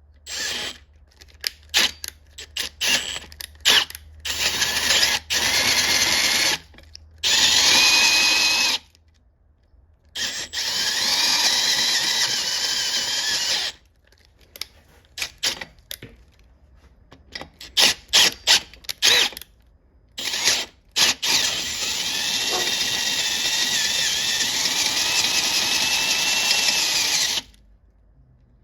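Electric drill boring out a stripped threaded plug bore in a transmission case, ready for a thread repair insert. It runs in short trigger bursts at first, then in longer steady runs of a few seconds, its whine wavering in pitch as it cuts.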